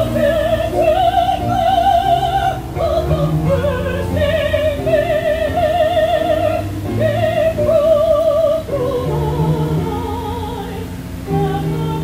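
A woman singing a slow song in operatic style, holding high notes with a wide vibrato, over a steady instrumental accompaniment.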